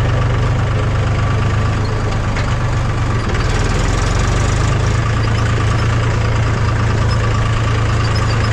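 Farm tractor's diesel engine running at low revs as the tractor drives slowly, a steady low engine note with a faint constant whine above it. The note shifts slightly about three seconds in.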